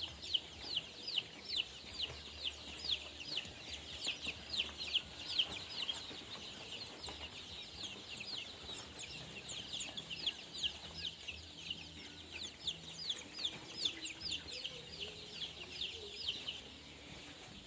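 A brooder flock of 18-day-old native village-chicken chicks peeping: many short, high, falling peeps overlapping, several a second, thinning out near the end.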